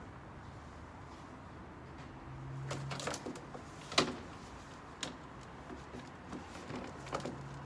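Clicks and knocks of a plastic pet carrier with a wire-grille door being handled. The sharpest and loudest click comes about four seconds in, with a few smaller knocks around it, over a faint low hum.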